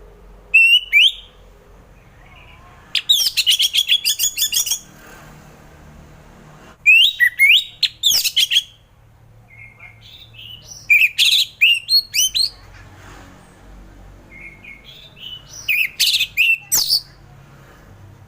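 Orange-headed thrush singing in the open, continuous 'ngeplong' style: a short opening phrase, then four bursts of rapid, varied whistled notes, each one to two seconds long, with short pauses between.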